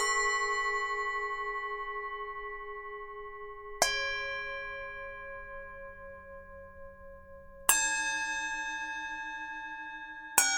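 Tibetan singing bowls struck one after another, four strikes a few seconds apart, each ringing on and slowly fading with a wavering beat. Each strike sounds a different pitch.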